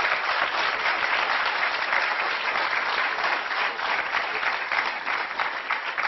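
Audience applauding: a dense, even patter of many hands clapping that thins out near the end.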